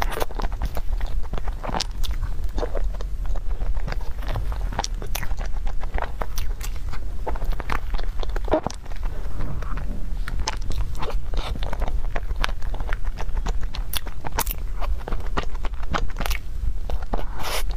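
Close-up eating sounds: wet mouth noises and chewing while eating whipped-cream cupcake from a plastic cup with a spoon, with a dense run of sharp clicks and smacks throughout and a steady low hum underneath.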